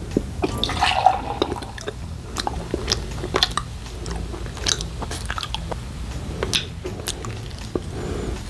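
A person chewing and biting food close to the microphone: irregular mouth clicks and smacks over a steady low hum.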